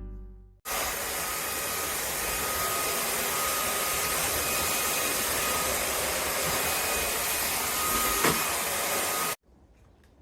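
INTETURE BP10 cordless stick vacuum running at a steady level: airflow hiss with a faint high whine. It starts abruptly just after the start, gives a brief click shortly before the end, and cuts off suddenly near the end.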